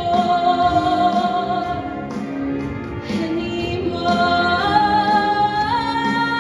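Show choir singing with a live band: voices hold a long sung note on the word "anymore", and the held chord steps up in pitch twice near the end.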